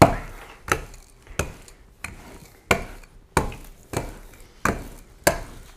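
Wooden rolling pin rolling out dough on a countertop, knocking sharply at each back-and-forth stroke, about nine knocks evenly spaced about two-thirds of a second apart.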